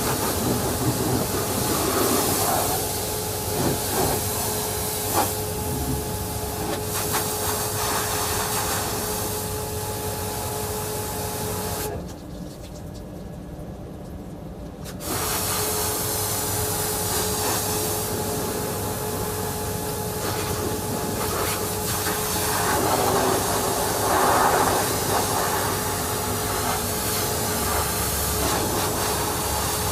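Hot-water pressure washer spraying: a steady loud hiss with a droning tone. The spray cuts off abruptly about twelve seconds in, leaving a low hum, and starts again just as abruptly some three seconds later.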